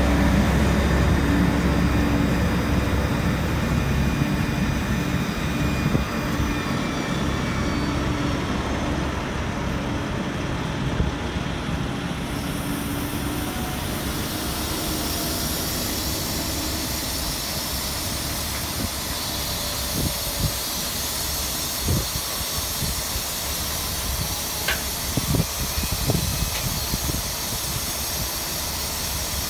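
Semi truck diesel engine running at idle with a steady hiss. Its low hum fades over the first dozen seconds, and a few sharp knocks come in the last ten seconds.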